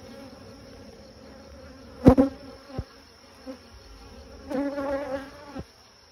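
Honeybees buzzing steadily over the open top bars of a hive. The buzz swells loudly and briefly about two seconds in, and again for about a second near the end.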